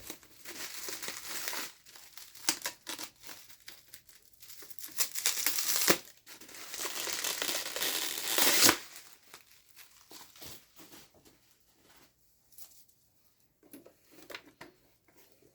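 Packaging being handled and pulled open to free a weather radio: irregular crinkling and tearing in clumps, loudest over several seconds in the middle, then only a few faint rustles and clicks near the end.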